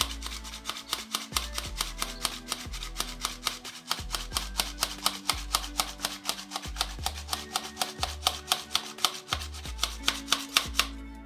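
Hand-squeezed flour sifter pumped steadily: a fast, even run of sharp rasping clicks as its handle works and flour shakes through the mesh, stopping near the end.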